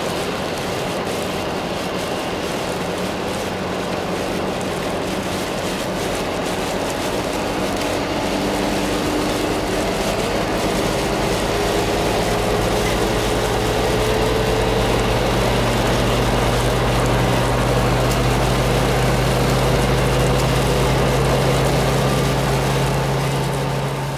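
Car cabin noise while driving on a rain-soaked highway: steady hiss of tyres and spray on wet asphalt with a low engine hum. Around the middle the noise grows louder and a hum rises slowly in pitch, and it fades out at the very end.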